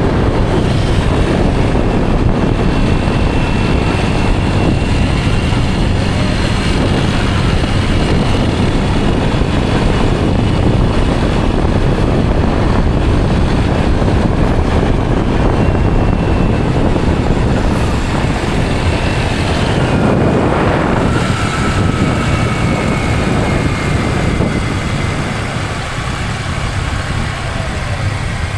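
Motor vehicle travelling along a road: steady engine and road noise with wind on the microphone, a faint whine drifting lower in the second half and the noise easing slightly near the end.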